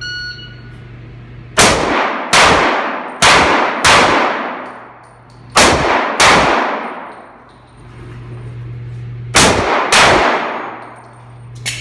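A shot-timer start beep, then eight pistol shots fired as four quick pairs, each shot ringing out with a long echo in the enclosed indoor range.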